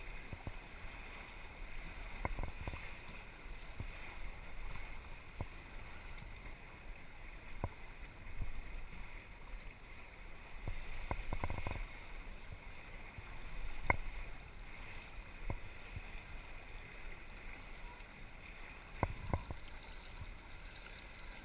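Water rushing and lapping along the hull of a small sailboat under way, with wind noise on the microphone and a few light knocks scattered through, the sharpest about two-thirds of the way in.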